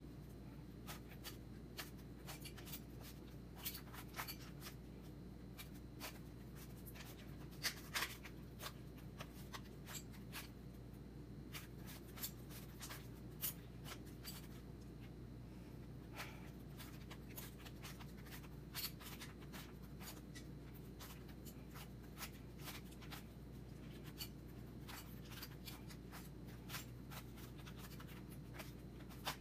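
Plastic Rubik's Cube being turned by hand: irregular quick clicks and rattles as its layers are twisted, over a faint steady hum.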